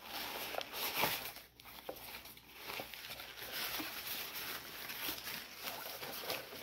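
Rustling of a folded black fabric reusable tote bag being handled and shaken open, with a few short handling knocks.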